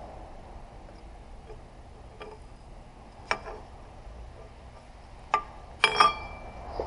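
A few sharp metallic clinks of metal parts being handled and set down, scattered over several seconds, the loudest two close together near the end, each ringing briefly.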